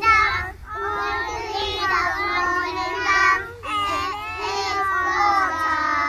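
A group of preschool children singing an autumn-leaves song together, in sung lines with short pauses between them.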